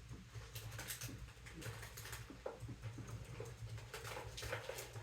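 Faint, irregular light clicks and taps of small parts being handled at a workbench, over a steady low hum.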